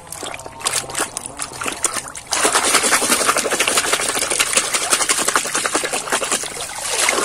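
Water splashing and sloshing in a basin as a hand scrubs a muddy plastic toy under the surface: a few scattered splashes at first, then about two seconds in it turns into steady, loud churning of the water.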